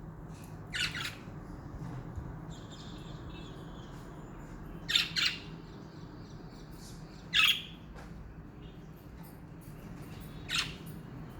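Budgerigars giving short, sharp squawking calls a few seconds apart, some in quick pairs, with faint chatter between, over a steady low hum.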